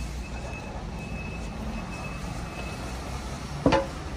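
City street background with a steady low rumble of traffic, and one sharp knock about three and a half seconds in.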